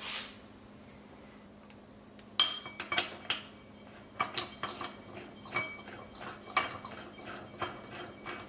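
Metal parts and tools being handled on a workbench: an irregular run of sharp clinks and clanks, some with a brief metallic ring, starting about two and a half seconds in.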